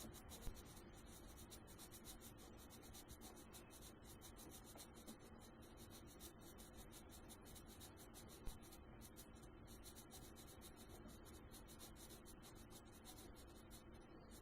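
Near silence, with faint rubbing and scratching of a marker pen being coloured onto metal as poor man's layout blue.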